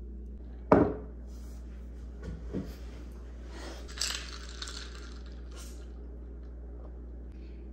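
Small hard objects being handled: one sharp clink about a second in, a few lighter knocks a little later, and a brief rustle near the middle, over a steady low hum.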